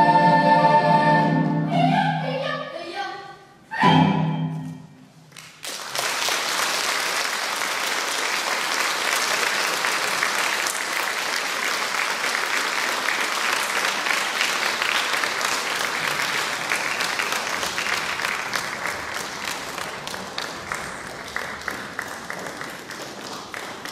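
Children's choir ends its song on a held chord and a short final note, then the audience applauds steadily, thinning slightly near the end.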